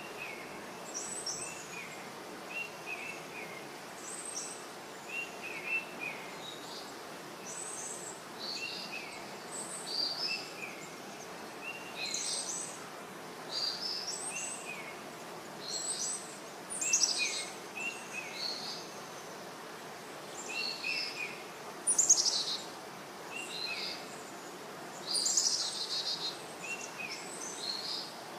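Birds chirping with short calls repeated every second or so, some lower with a falling two-note shape and some sharper and higher, over a steady background hiss.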